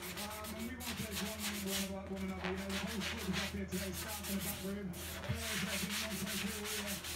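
Sanding sponge rubbed by hand back and forth along the edge of a wooden slab, in quick repeated scratchy strokes. A steady low hum runs underneath.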